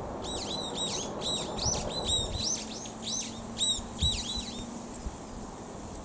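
Brown-eared bulbul singing: a fast run of short notes that rise and fall in pitch, about five a second, a bit noisy, stopping about three-quarters of the way through.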